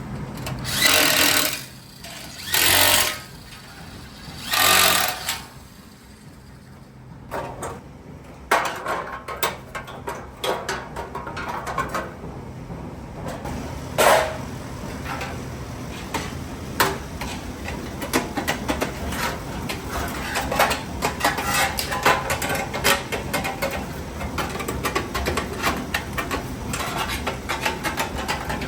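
Workshop tool noise from sheet-metal work. Three short, loud hissing blasts about two seconds apart, then a long run of rapid, irregular clattering and tapping over a steady machine hum.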